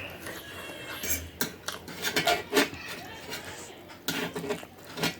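Cutlery clinking and scraping against a dish during a meal of noodles and sausage, with several sharp, irregular clicks.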